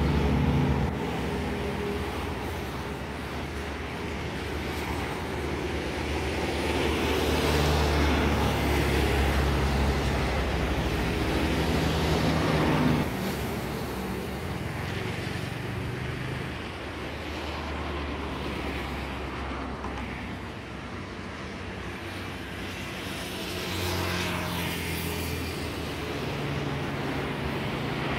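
Road traffic passing: a continuous rumble of vehicle engines and tyres that swells and fades. It is loudest in the first half and drops off sharply about halfway through.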